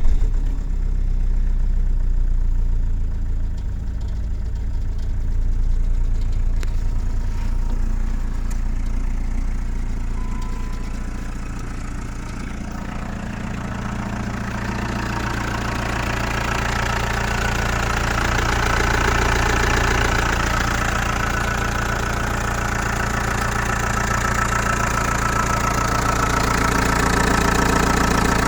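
Chrysler Voyager 2.8 CRD four-cylinder common-rail diesel idling just after a cold start, having stood unused for a couple of months, with a strange noise the owner cannot place. From about halfway a harsher, higher-pitched noise grows louder over the steady idle.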